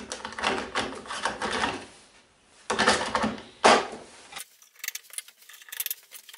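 A plastic hub cap being pressed and snapped onto a lawnmower wheel: rattling and clicking of plastic against the wheel, with the loudest knocks about three to four seconds in, then a run of faint clicks near the end.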